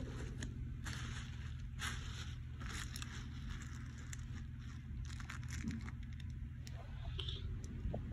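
Fleece fabric rustling and rubbing against the microphone, with scattered scratchy crackles over a low steady hum.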